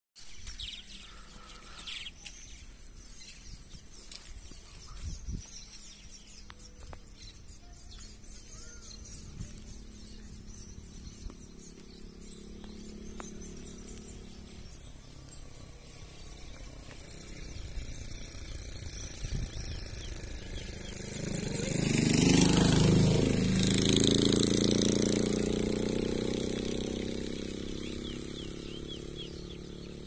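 Faint bird chirps over outdoor ambience. From a little past halfway, a motor vehicle approaches and passes, loudest about three-quarters of the way in, then fading.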